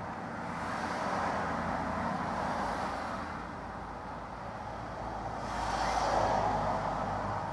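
Two vehicles passing one after the other on a road outside, each a rising and falling swell of tyre and engine noise, the second about five seconds in.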